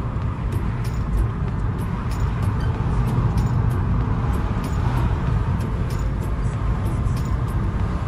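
A car being driven, heard from inside the cabin: a steady low rumble of engine and tyre noise.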